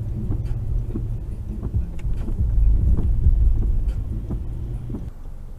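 Car driving, its low road and engine rumble heard through a dashcam inside the cabin, with a few faint clicks over it.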